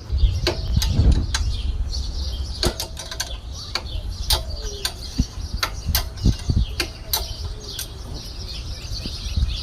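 Irregular sharp clicks and metal knocks of hand tools working loose a car's sway bar link, over a low rumble, with birds chirping in the background.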